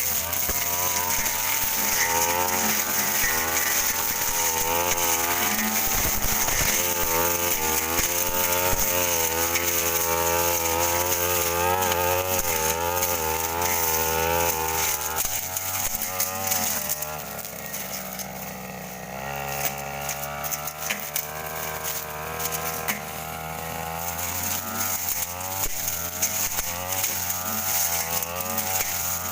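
Stihl two-stroke brush cutter running hard, its engine note wavering up and down as the blade cuts through dense brush. A little past halfway the revs drop back for a few seconds, then pick up again.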